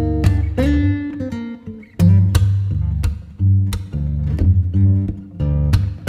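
Acoustic guitar music: plucked notes and strummed chords with a steady pulse.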